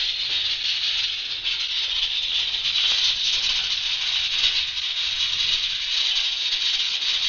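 Kitchen King pressure cooker's weight valve releasing steam: a steady, loud hiss with a fluttering rattle. This is the cooker's whistle, the sign that it has come up to pressure.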